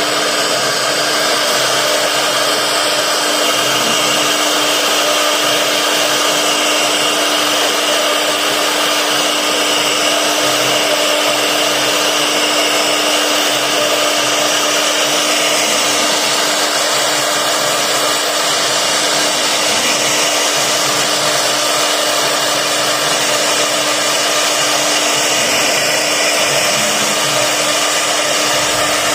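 CNC router spindle running at a steady speed, a constant pitch over a broad rushing noise.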